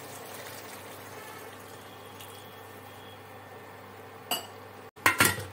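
A glass of water poured into a steel pressure cooker of browned mince, a steady watery rush. A sharp click about four seconds in, then a few loud knocks near the end.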